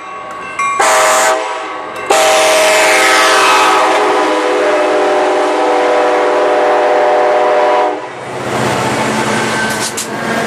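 Sounder commuter train's cab-car horn sounding a chord of several tones: a short blast about a second in, then one long blast held for about six seconds as the train comes into the station. After the horn stops, the bilevel coaches rush past close by with a steady rumble of wheels on rail.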